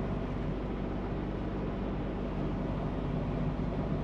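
Semi truck's diesel engine running steadily with road noise, heard inside the cab as the truck drives slowly; a low, even drone.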